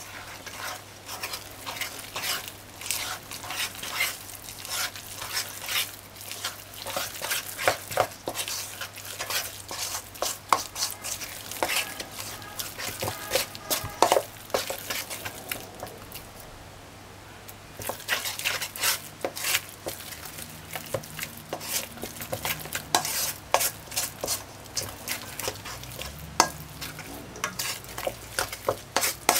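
A metal spoon stirring and scraping a thick flour-and-water dough in a stainless steel bowl, with quick, irregular clinks and scrapes and a short pause a little past halfway. This is the mixing of codfish fritter batter.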